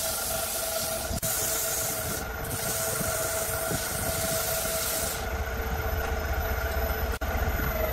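Electric wood lathe running with a steady whine while sandpaper held against the spinning wooden blank hisses; the sanding hiss stops about five seconds in, leaving the lathe running.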